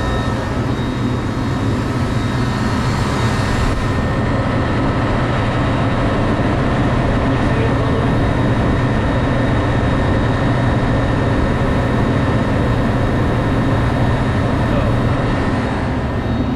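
Walk-in freezer condensing unit running steadily, its compressor and condenser fan making a constant drone with a few steady tones, while the system is being charged with R-404A refrigerant.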